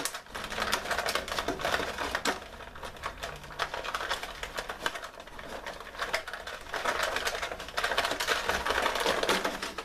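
Rigid clear plastic blister tray crackling and clicking as hands untwist the wire ties and work an action figure out of it: a dense run of irregular sharp clicks and crinkles.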